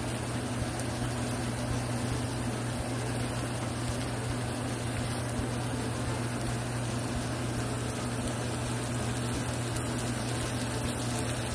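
Scrambled eggs with eggplant and salami sizzling in a frying pan as they are stirred with a spatula, a steady even frying noise over a constant low hum.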